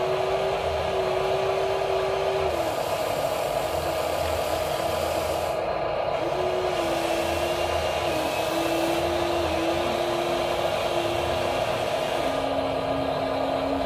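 Electric motors of a Huina RC excavator whining steadily as the boom, arm and bucket move, the tone stepping to a new pitch several times as the motors change.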